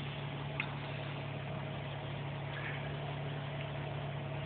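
A vehicle engine idling steadily: a constant low hum with a fainter steady tone above it, and a faint tick about half a second in.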